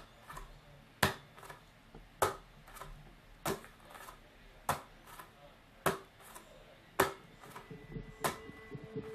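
Sharp knocks at an even, slow pace, about one every second and a bit, each followed by a much softer tap. Music fades in under them near the end.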